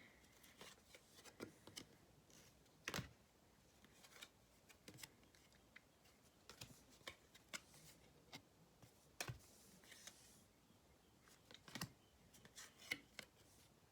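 Faint, irregular clicks and light snaps of Yu-Gi-Oh trading cards being handled and flipped through, with near silence between them.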